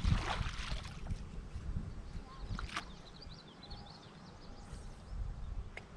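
River water splashing briefly at the start, then faint bird chirps in the middle over a low rumble of wind on the microphone.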